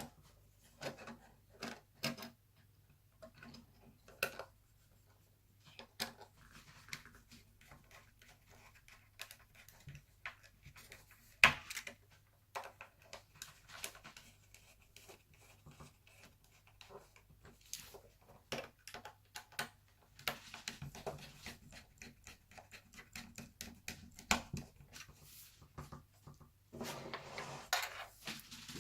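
Irregular small clicks, taps and scrapes of laptop parts and tools being handled during reassembly, one sharper knock near the middle, over a steady low hum.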